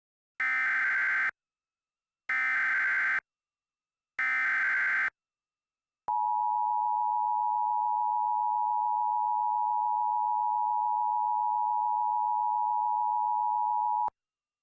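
Emergency Alert System alert tones: three short bursts of warbling digital SAME header data, each just under a second long, then the steady attention tone for about eight seconds, the signal that a warning message follows.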